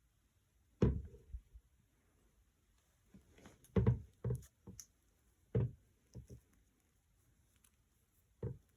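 A series of short, dull knocks and thumps, about six of them spread out at irregular intervals, as of objects being handled and set down.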